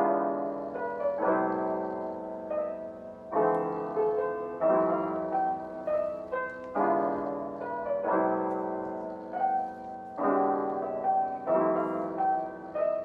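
Background music: a soft, slow piano piece with gentle chords struck every second or two.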